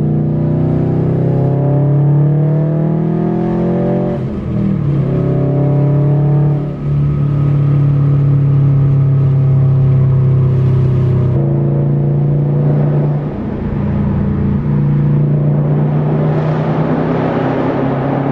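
A 2017 Subaru STI's turbocharged 2.5-litre flat-four running through catless downpipes and a muffler-deleted, near straight-pipe exhaust, heard from inside the cabin. The revs rise under a third-gear pull, dip briefly about four seconds in and again near seven seconds, then the engine settles into a steady, very loud drone.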